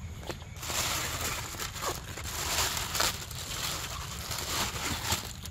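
Close, dense rustling and crinkling with a few sharp crackles, like material being crumpled or brushed right against the microphone.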